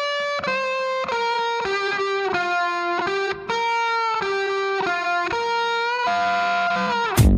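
Background music: a melodic line of held electric-guitar notes, changing about twice a second, with no drums, until a busy beat comes back in just before the end.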